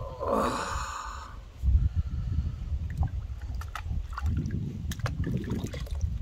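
Water sloshing in a plastic tub, with drips and small splashes as a wet puppy is dipped and its soaked fur squeezed out. A brief pitched cry sounds near the start.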